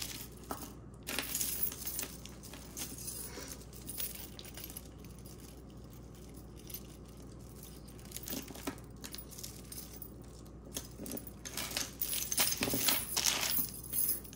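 Glass bead jewelry being handled and sorted: beads and small pieces clinking and jingling in short scattered clusters, busier in the last few seconds.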